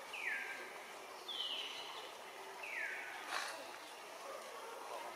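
Three short calls falling steeply in pitch, each about half a second long and spaced a second or so apart, over steady outdoor background noise.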